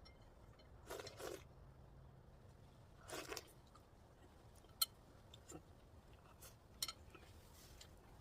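Faint crunching from someone biting and chewing food: two short crunches about two seconds apart, followed by a few sharp clicks.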